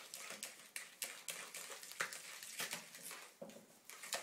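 A utensil stirring thick yogurt-based sauce in a plastic mixing bowl, scraping and clicking against the bowl's sides in irregular strokes, a few each second.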